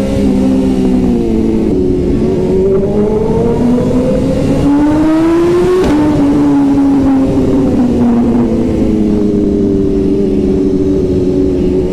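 Sportbike engine heard from the rider's seat with wind rush: its revs climb steadily, drop abruptly about six seconds in, then fall slowly as it eases off.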